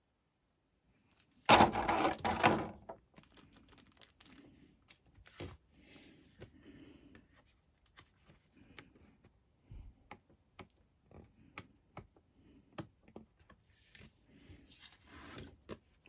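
Hands handling unboxed kit packaging and paperwork: a loud crinkling rustle about a second and a half in, lasting about a second, then scattered light clicks, taps and paper rustles, with another rustle near the end.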